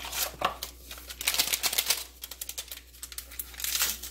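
Packets of sugar-free lemon jello mix being opened and handled over a glass bowl: a rapid crackling and clicking of paper and packet, with two louder, denser stretches, about a second in and near the end.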